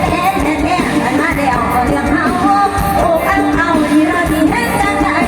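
A singer performing a song live with a band backing, the sung melody over steady accompaniment.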